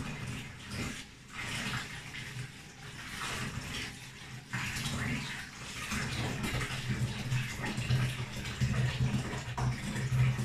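Bath tap running hot water into a bathtub topped with bubble-bath foam, with a steady splashing rush.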